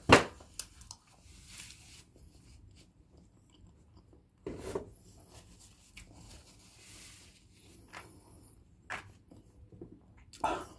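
Close-up eating sounds from boiled duck eggs (balot): a sharp click right at the start, then a few scattered clicks and soft mouth sounds, with quiet chewing in between.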